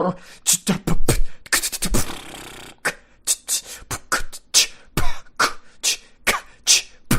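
Mouth beatboxing: a fast run of percussive mouth sounds, sharp kick- and snare-like clicks and pops several a second, with a short hissing stretch about two seconds in.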